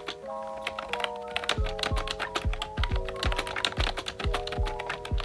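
Fast typing on a UBOTIE retro typewriter-style mechanical keyboard, a quick, irregular run of sharp key clicks, over background music with chords and a steady beat.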